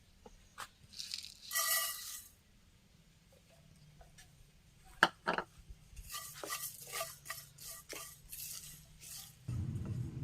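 Cooking utensils clinking, knocking and scraping against pots and dishes in short, irregular bursts, with one sharp knock about halfway. A steady low rumble starts near the end.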